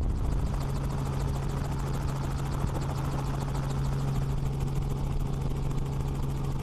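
Helicopter flying steadily: a rapid, even rotor beat over a constant low engine hum.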